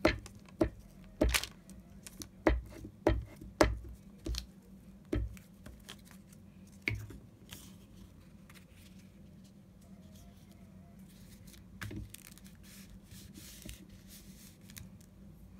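Paper being handled: a quick run of sharp crackles and knocks over the first five seconds, then a few more and faint rustling, over a low steady hum.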